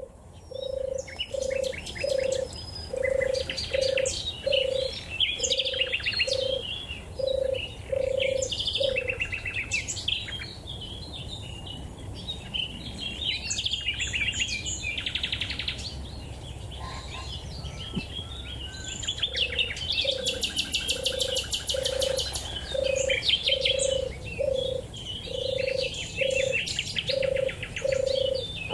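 European turtle dove purring, a long run of evenly repeated low, rolling notes that stops about nine seconds in and starts again about ten seconds later. Other songbirds chirp and sing at a higher pitch throughout.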